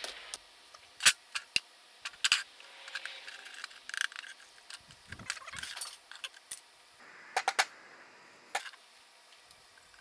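Sharp metallic clinks and knocks, the loudest about a second in, as a freshly cast brass buckle is broken out of its Delft clay sand mold and handled with pliers on a steel plate, with a soft rustle of crumbling casting sand in between.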